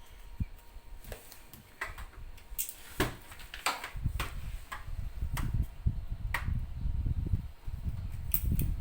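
Irregular light clicks and taps of plastic magnetic alphabet letters being picked up and put on a fridge, with a low rumble of handling noise from about halfway.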